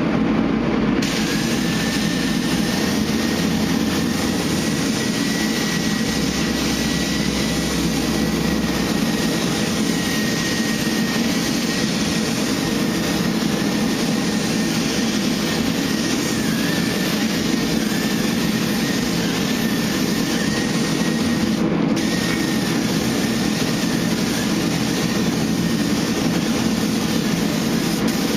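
Paint spray gun hissing as a light coat of base coat is sprayed over the truck, with a thin steady whistle in the airflow. The trigger is let off briefly about three quarters of the way through. A steady low machine hum runs underneath.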